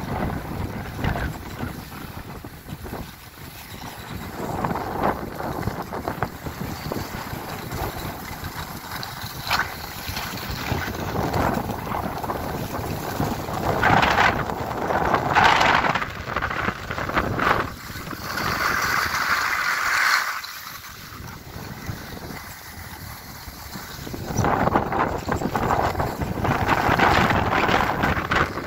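Skis sliding and scraping over packed snow, with wind buffeting the microphone; the hiss swells and fades several times.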